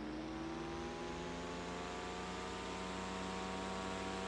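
Antique GE cast-iron desk fan (small motor yoke, c. 1911–1913) running on high speed: a steady motor hum with the whir of the spinning blades, pretty quiet. Its pitch rises slightly in the first second or so as it comes up to speed, then holds steady.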